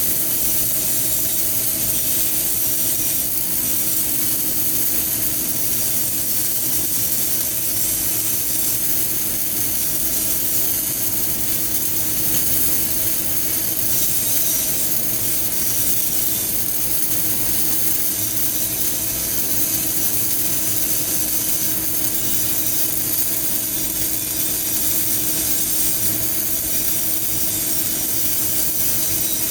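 CO2 gas-shielded welding arc on solid wire, crackling and hissing steadily without a break, with a steady hum underneath.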